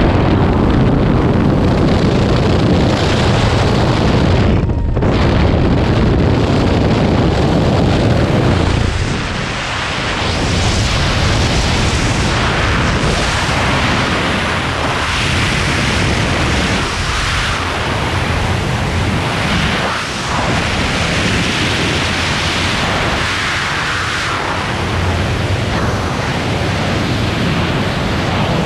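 Freefall wind rushing hard over the skydiver's camera microphone. It is loudest for the first eight seconds or so, then drops a little and swells and fades unevenly.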